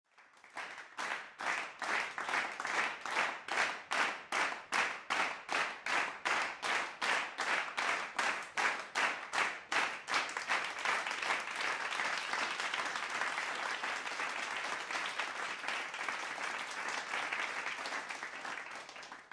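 Audience clapping in unison, about three claps a second, then breaking into continuous applause about ten seconds in.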